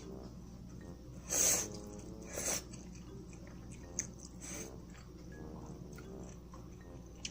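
Close-miked eating sounds of someone eating malatang: chewing, with two louder noisy bursts about a second and a half and two and a half seconds in, a weaker one near the five-second mark, and a few small clicks.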